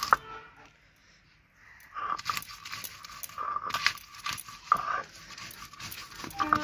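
Stone roller (nora) ground and rocked over green chillies on a stone grinding slab (shil), half-crushing them beside mustard and poppy-seed paste: a run of gritty scraping and crunching strokes. There is a short lull about a second in, and the grinding resumes at about two seconds.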